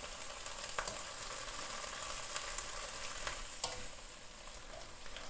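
Langoustines sizzling steadily in a frying pan in soy and teriyaki sauce, with a couple of sharp clicks and scrapes of the spatula against the pan as they are turned over.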